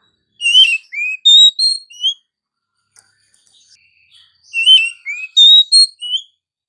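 Oriental magpie-robin (kacer) singing: a short phrase of clear, sliding whistled notes, given twice, about four seconds apart.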